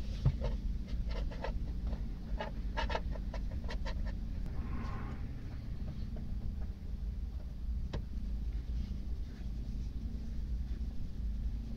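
Light clicks and taps of a steel vernier caliper being handled and wiped with a cloth, a cluster of them in the first few seconds and one more later on, over a steady low hum.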